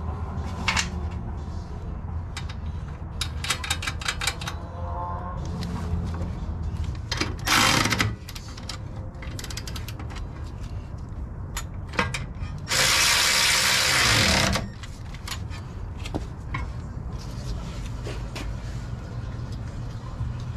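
Hand work on a car's front hub and brake assembly: metal clinks and a quick run of ratchet-like clicks, then a power tool running in two bursts, a short one and a louder one of nearly two seconds that winds down at the end.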